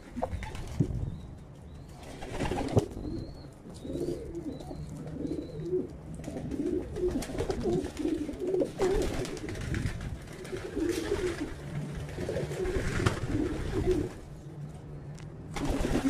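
Racing pigeons cooing, several low warbling coos overlapping one after another, with a few sharp clicks in between and a short run of faint high chirps about three to five seconds in.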